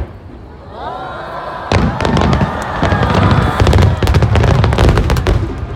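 Fireworks display: several whistles rising in pitch about a second in, then from just under two seconds a dense barrage of bangs and crackling with deep booms.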